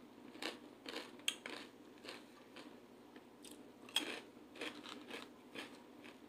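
Close-up chewing of crunchy food, with irregular crisp crunches about twice a second; the sharpest comes about four seconds in.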